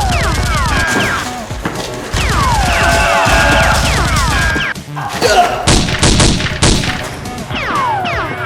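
Action music laid over battle sound effects: repeated falling-pitch electronic sweeps, and a run of sharp bangs and impacts about five to seven seconds in.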